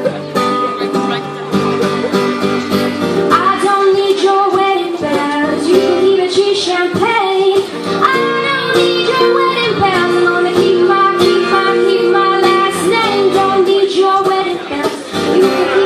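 A young female singer singing a held, wavering melody over strummed guitar in a live performance.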